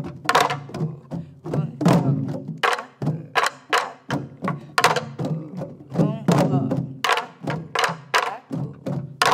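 Many sori-buk barrel drums struck together with wooden sticks in the lilting jungjungmori rhythm, thuds on the drumheads mixed with sharp clacks on the wooden rims. A voice sings along over the beat.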